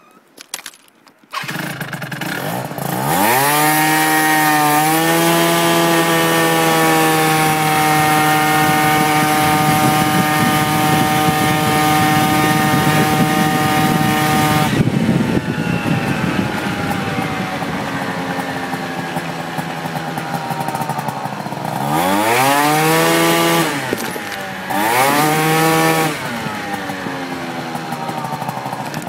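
Yamaha Jog RR two-stroke scooter engine starting about a second in, revving up and held at high revs for about twelve seconds, then dropping back to idle, with two short throttle blips later on and a third rev starting near the end. The owner posts it as an odd noise from the scooter.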